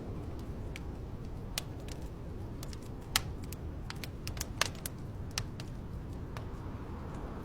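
Wood fire crackling in a fireplace: irregular sharp pops and snaps over a steady low rumble, the loudest pops about three and about four and a half seconds in.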